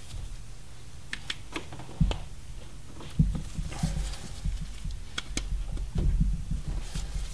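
Irregular clicks, taps and rubbery knocks of spark plug wires and their boots being handled and pushed into place by gloved hands, with a few louder knocks about two, three and six seconds in.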